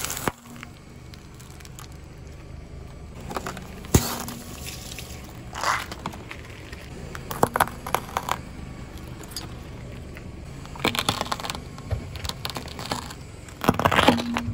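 Car tyre rolling slowly over small brittle objects on asphalt, crushing them with sharp cracks and crackles every second or two. The loudest come about four seconds in and near the end, over a steady low rumble.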